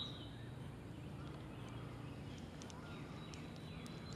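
Quiet outdoor ambience with a low steady hum and faint bird chirps: a short chirp at the very start and a few falling chirps past halfway.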